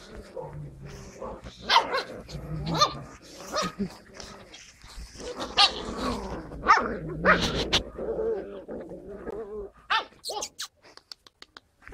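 Skye Terrier puppies yapping and growling at play, with short, sharp yaps repeating through the middle and a few clicks near the end.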